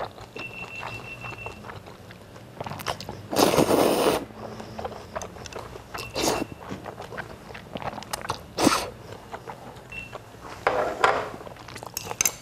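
Close-miked eating: noodles slurped off chopsticks, several slurps with the longest about three seconds in, with chewing and small clicks in between.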